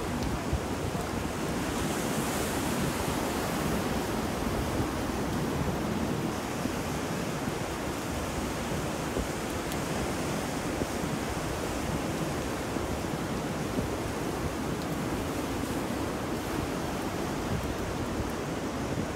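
Ocean surf and wind in a steady, unbroken wash of noise, with a brief brighter hiss about two seconds in.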